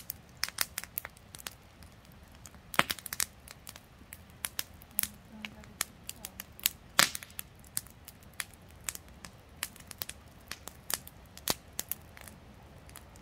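Wood campfire crackling, with irregular sharp pops and snaps from the burning branches; the loudest pops come about three and seven seconds in.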